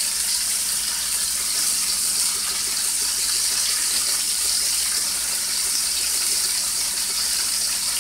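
Boneless beef short ribs sizzling steadily in a hot frying pan, a constant high hiss.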